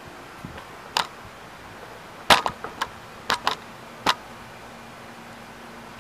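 A series of about seven short, sharp clicks and knocks of things being handled, irregularly spaced, the loudest a little over two seconds in.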